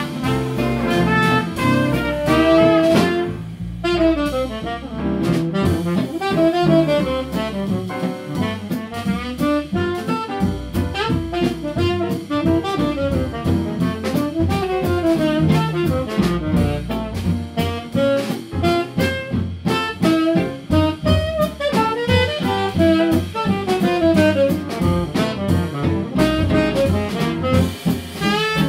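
Small swing jazz band playing live: a saxophone solo leads over piano, archtop guitar, upright bass and a drum kit keeping a steady swing beat.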